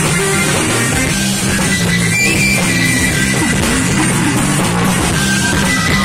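Live rock band playing loudly through stage speakers, led by electric guitar.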